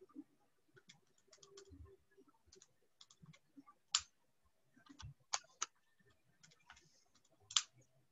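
Faint, irregular key clicks as numbers are punched in to work out a result, with a few louder sharp clicks about four seconds in, twice around five and a half seconds, and near the end.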